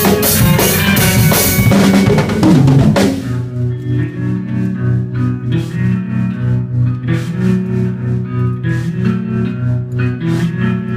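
Live rock band playing with drum kit, guitar and bass. A loud, dense full-band passage breaks off about three seconds in, giving way to a quieter groove of steady bass notes and guitar with lighter drumming.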